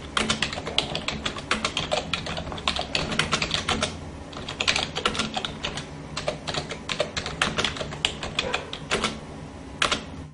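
Typing sound effect: rapid, irregular key clicks that accompany text being typed out on screen, over a steady low hum.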